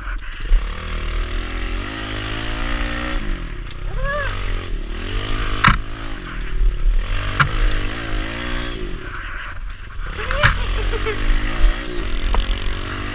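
Kawasaki KLX110 pit bike's small single-cylinder four-stroke engine running under load as it is ridden, its pitch rising and falling again and again with the throttle. A few sharp knocks come through, about six, seven and ten seconds in.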